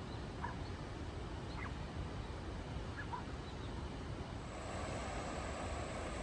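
Steady outdoor background noise with a few faint, short bird calls; about four and a half seconds in, a steady high-pitched tone joins and the noise grows a little louder.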